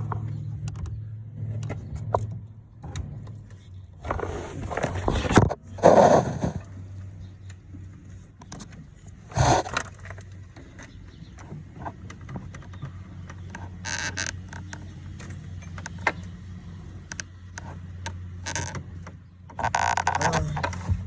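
Dodge Charger engine idling steadily, with intermittent metallic clinks, clatters and scrapes of tools and parts being handled in the engine bay.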